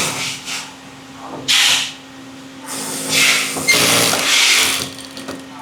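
Factory machinery: repeated bursts of hissing noise, the longest about three seconds in, over a steady low machine hum.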